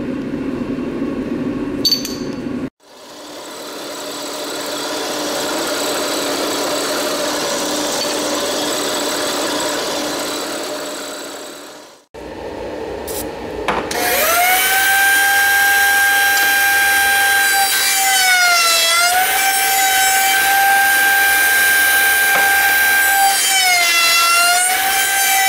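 Shop power tools running: a steady rushing machine noise that swells and fades, then a loud, high-pitched motor whine whose pitch sags twice, as it does when a tool is pushed into the work.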